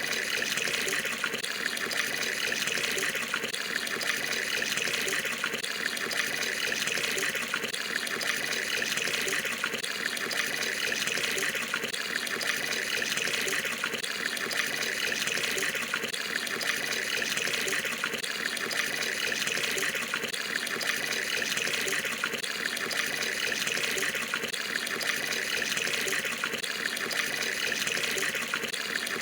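Water pouring from a tap into a tub that is filling, a steady splashing run of water.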